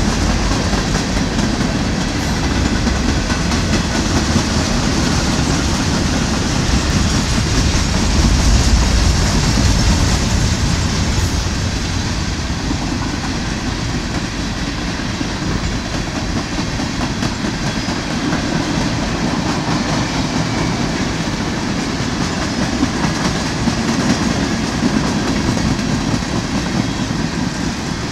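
Freight cars of a mixed freight train rolling past, with a steady rumble of wheels on the rails that is a little louder about eight to ten seconds in.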